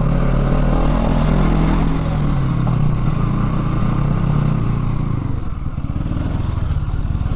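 Bajaj Pulsar NS200's single-cylinder engine pulling the motorcycle along at a fairly steady pace, its note dipping briefly about five and a half seconds in.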